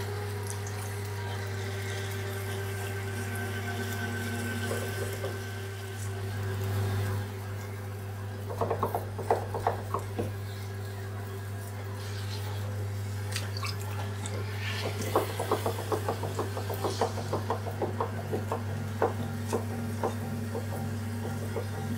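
Wet clay squelching and rubbing under a potter's hands on a spinning potter's wheel, over the wheel's steady low motor hum; bursts of quick, wet squishing come about eight seconds in and again through the second half.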